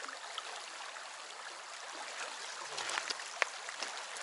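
Shallow, fast river running over stones in a steady rush of water, with a few sharp clicks about three seconds in.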